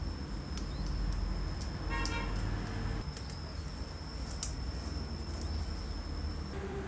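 A screwdriver turning in the carbon brush cap of an old Hitachi electric drill, with a few faint clicks, over a steady low rumble. A brief horn-like toot sounds about two seconds in.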